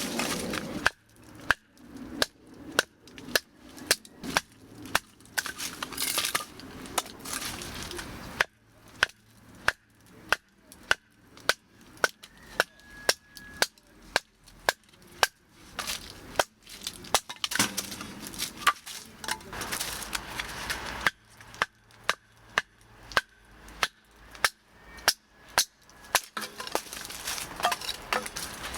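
Firewood burning in a wood-burning stove, crackling with sharp, irregular pops, about one or two a second, over a soft hiss.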